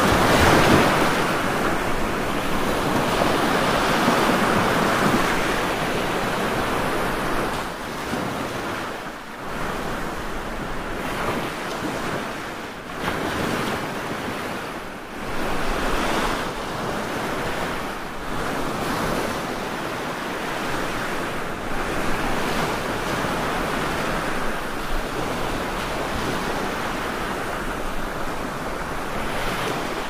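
Rushing water: a dense, steady hiss of falling and flowing water that swells and eases every few seconds.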